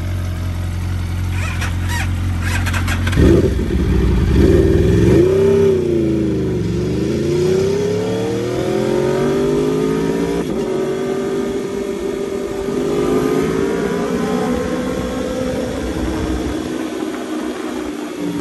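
2016 Aprilia RSV4 RR's V4 engine pulling away from low revs in first gear, the engine note rising and falling about three seconds in, then climbing steadily as the bike picks up speed. It is in second gear near the end.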